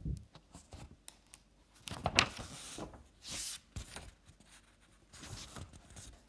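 Paper rustling, with a few soft knocks and clicks, as a book is opened and its pages turned. The longest rustle comes in the middle.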